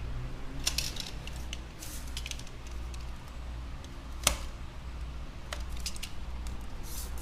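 Handling noises of adhesive tape strips being worked onto an iPad frame: scattered crackles and ticks about a second in and again near the end, with one sharp click about four seconds in, over a steady low hum.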